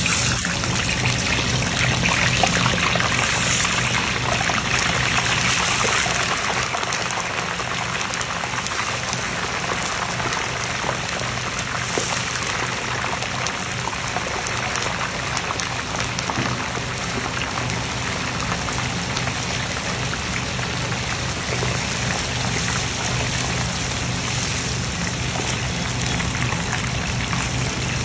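Pomfret deep-frying in a wok of hot oil: steady, dense sizzling and bubbling, a little louder over the first few seconds.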